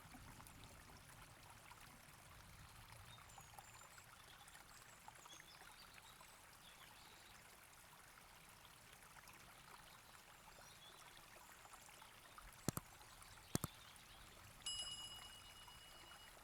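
Near silence: faint steady hiss, broken about thirteen seconds in by two sharp clicks under a second apart, then a short high ringing tone that fades.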